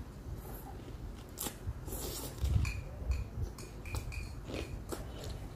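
Close-up chewing and biting of food, the mouth working on a raw red pepper slice, with a few sharp crunches among the steady chewing.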